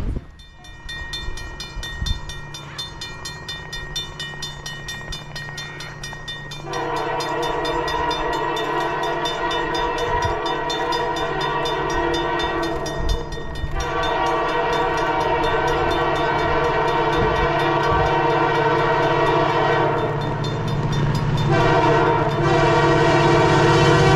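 Diesel locomotive air horn sounding as the train approaches, over the steady low hum of the locomotive. The horn is faint at first, then gives three long, loud blasts, and its pitch falls near the end as the locomotive comes close.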